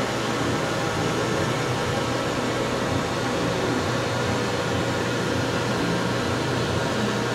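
Steady running hum and hiss of the Doosan DNM-400 vertical machining center, with a few faint steady tones and no change in level.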